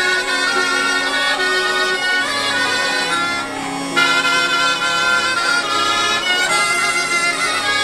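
Southern Italian folk music led by a zampogna, the Italian bagpipe: steady held drones under a melody that moves in short held notes.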